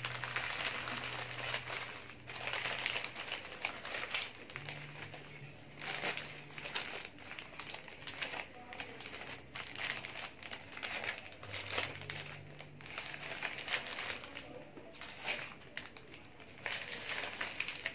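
Sheets of purple flower-wrapping paper crinkling and rustling in irregular bursts as they are folded and gathered around a bouquet.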